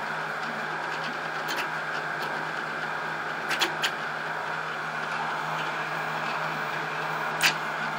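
Celeritas high-speed 3D printer running a print of a small test cube at 50K acceleration: a steady whir of its stepper motors and moving print head with a low hum. A few short clicks come about three and a half seconds in, and one sharp click near the end.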